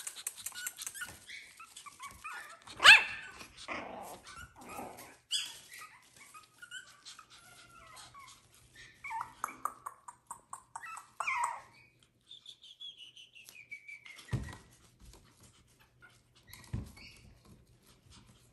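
Toy Pomeranian puppies yipping and whimpering in scattered short calls, the loudest about three seconds in, with a long falling whine later on. Small clicks and a couple of low thumps come in between.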